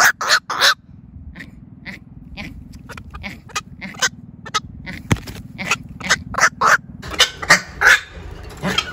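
Black-crowned night heron calling: a string of short, sharp calls at uneven intervals, some coming in quick pairs.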